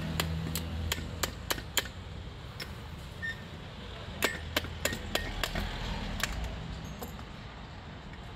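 Sharp metallic clicks and clinks as the end housing and small parts of a car starter motor are handled with pliers during disassembly, about six in quick succession in the first two seconds and another six between about four and six and a half seconds in. A low engine hum runs underneath, fading over the first couple of seconds.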